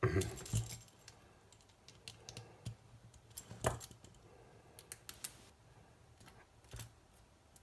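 Irregular small clicks, taps and light rattles of small parts and screws being handled and fitted by hand, with the loudest knocks just after the start and about midway.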